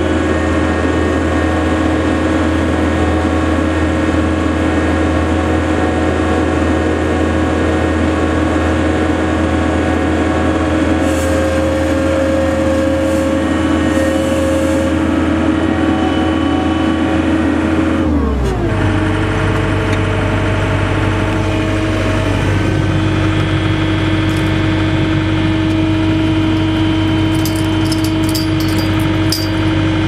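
John Deere 317 skid steer loader's diesel engine running steadily at high throttle, heard from the operator's seat. About 18 seconds in, the engine speed drops and then holds steady at a lower pitch. A few light clicks come near the end.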